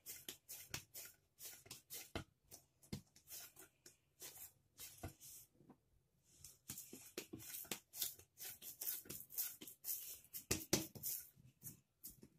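Hands kneading a stiff ball of maida dough in a glass bowl: faint, irregular pats and squishes with a pause of about a second about halfway through.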